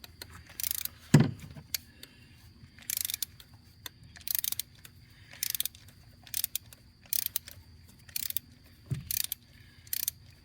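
Hand ratchet clicking on its return strokes in short bursts about once a second, turning a spark plug out of a Ford 5.4 3V engine. A single low thump about a second in.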